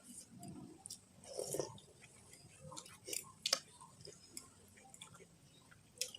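Close-miked eating of spicy instant noodle soup: wet chewing with irregular soft clicks and smacks, a couple of sharper clicks about three seconds in.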